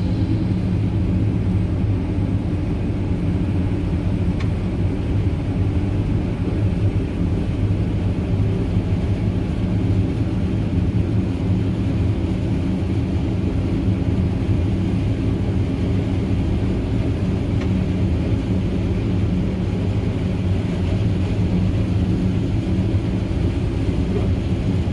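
Heavy farm diesel engines, the tractor's and the forage harvester's, running steadily under load as maize is chopped for silage and blown into the trailer: a constant low drone with no change in speed.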